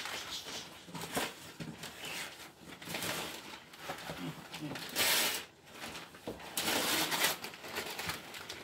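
Wrapping paper being torn and crinkled off a gift box in a run of short, rough rips, the loudest about five seconds in.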